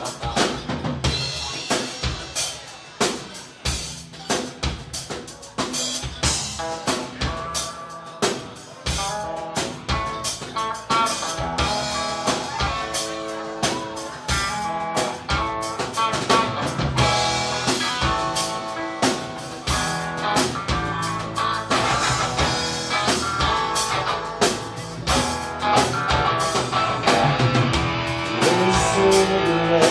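A live rock band playing without vocals: drum kit, electric guitars and bass guitar. The drums keep a steady beat, and the guitar lines come in more strongly after about nine seconds.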